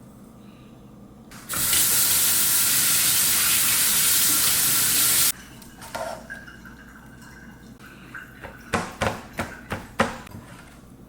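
Kitchen tap running into a sink for about four seconds, switched on and off abruptly. A few seconds later come about five quick clinks of dishes.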